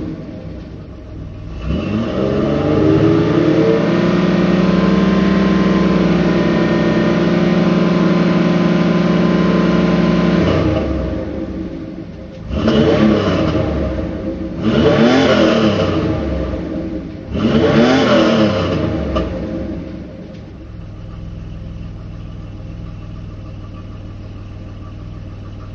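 Car engine with a knock, revved up and held at high revs for several seconds, then blipped three times and left to idle.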